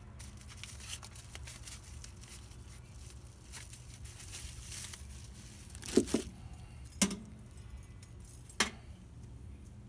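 Plastic packing wrap crinkling and tearing as it is pulled off a wire oven rack, then three sharp metal clanks in the second half as the wire rack is worked out of the oven.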